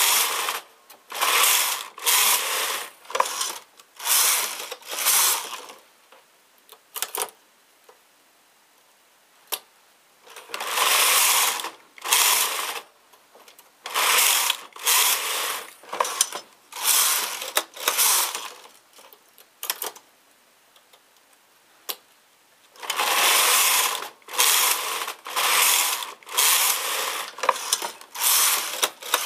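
Domestic knitting machine carriage pushed back and forth across the metal needle bed, each pass a rattling, whirring stroke of about a second. The strokes come in three runs of several passes, with quieter pauses of a few seconds in between that hold only a few isolated clicks.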